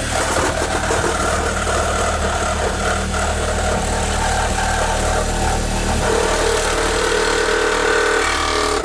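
Power saw running steadily as it cuts through the RV wall, its pitch shifting about six seconds in; it stops abruptly at the end.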